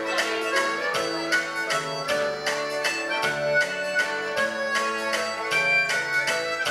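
Live band music: a harmonica played into a microphone carries the lead with held notes, over electric guitar and a steady beat.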